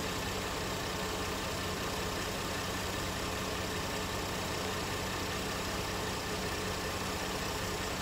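A vehicle engine idling with a steady hum over an even rushing noise, unchanging throughout.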